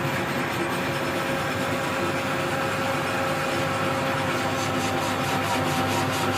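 Metal lathe cutting hard iron: a steady machining noise with a high, even whine from the tool working the turning metal, and a faint regular ticking coming in near the end.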